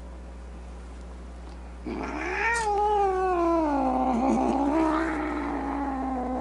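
A cat giving one long drawn-out yowl that starts about two seconds in, rising in pitch and then slowly falling, over a low steady hum.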